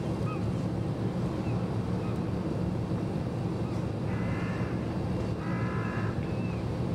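Steady low engine drone, with faint bird chirps scattered through it and two bird calls of about half a second each, roughly four and five and a half seconds in.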